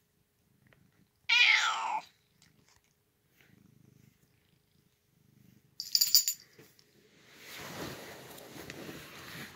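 A domestic cat meows once, loud and falling in pitch, about a second in, then purrs softly while being stroked. A small collar bell jingles briefly around six seconds, followed by rustling of the fleece bedding near the end.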